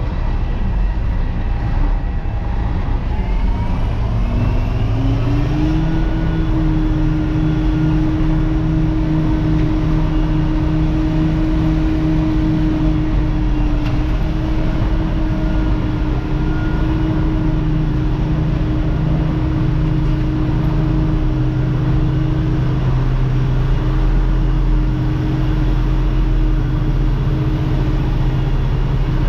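A 48-year-old Mack truck's diesel engine running, its revs climbing about four to six seconds in, then holding a steady pitch.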